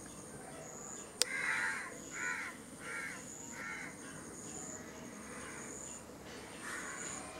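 An animal calling four times in quick succession, the calls about two-thirds of a second apart, just after a sharp click. A high, repeating chirp-like pattern runs steadily behind.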